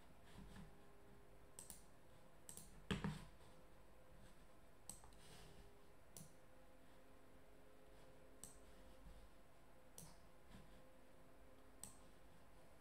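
A dozen or so sparse, short clicks from a computer mouse and keyboard, the loudest about three seconds in, over an otherwise near-silent room.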